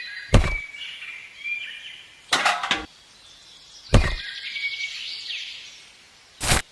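Four sharp knocks, the second a short rattling cluster, over birds chirping.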